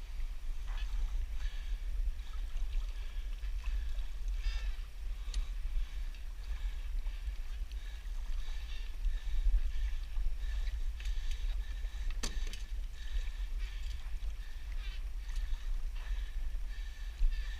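Wind rumbling steadily on the microphone of a Hobie 14 catamaran under sail, over a hiss of water and scattered light clicks, with one sharper click about twelve seconds in.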